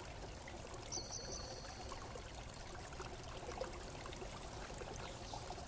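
Faint steady background hiss, with a few faint clicks of a crocodile clip being handled and a brief high whine about a second in.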